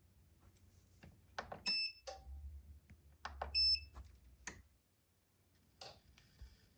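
Button clicks on a DJI Power 1000 portable power station, each press answered by a short high electronic beep. There are two beeps about two seconds apart, and a low hum sounds between them.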